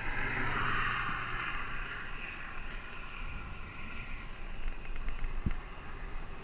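Riding noise from a helmet-mounted camera on a Caloi 10 road bike rolling along asphalt: a steady rushing hiss of wind and tyres, louder for the first couple of seconds and then easing, with a short knock about five seconds in.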